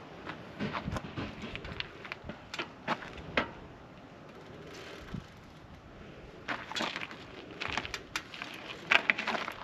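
Metal clicks, knocks and rattles from a Hiyway BK6 folding e-bike being folded up as its safety catch and hinge are worked. There is a quieter spell in the middle, then a busier clatter in the last few seconds.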